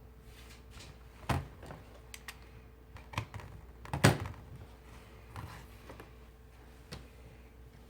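Irregular knocks and clicks of small hard objects being handled on a workbench, with two louder thunks, about a second in and about four seconds in, over a faint steady hum.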